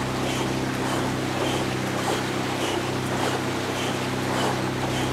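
Steady hum of a motorboat engine keeping pace, with the rhythmic splash of sprint kayak paddle strokes at about two a second, a racing cadence of around 110 strokes a minute.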